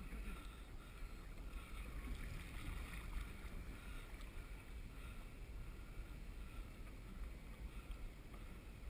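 Steady wind rumbling on the camera microphone, with low water noise around a kayak hull on open sea.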